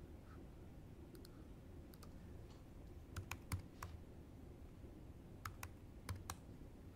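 Faint keystrokes on a laptop keyboard, a few scattered taps coming in two small clusters, as numbers are typed in.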